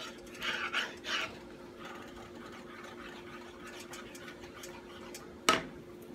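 Wooden spoon stirring thick white gravy in a skillet, with scraping, swishing strokes in the first second or so over a steady low hum. A sharp knock about five and a half seconds in as the spoon is laid down in the pan.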